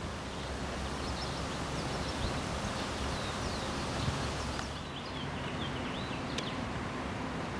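Outdoor garden ambience: small birds chirp in short calls scattered through it, over a steady low rumble and hiss. The hiss drops somewhat about two-thirds of the way in.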